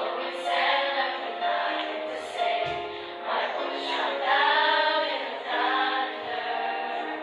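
Children's choir singing in parts: several voices hold long, steady notes together in harmony, moving to new notes every second or so.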